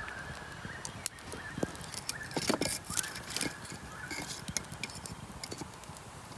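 Dry wood crackling and snapping in irregular sharp clicks, thickest around the middle, over a faint steady high tone.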